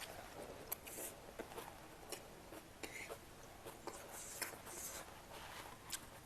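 Faint chewing and mouth sounds of someone eating steamed momos, with scattered small clicks and soft wet smacks at irregular moments.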